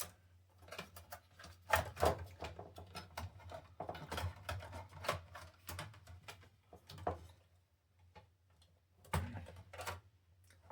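Irregular clicks, knocks and rattles of plastic and metal as a desktop PC power supply unit is worked loose and unplugged from its connectors inside the case. There is a quieter pause near the middle, then a brief louder clatter near the end.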